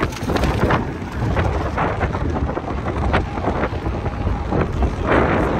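Rain falling with wind buffeting the microphone: a steady low rumble with scattered pattering over it.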